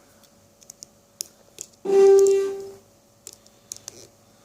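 A single loud electronic notification tone, steady in pitch, sounding for about a second and fading out near the middle, from a device left switched on. Around it, faint light clicks of lock picks and a tension wrench working in a padlock.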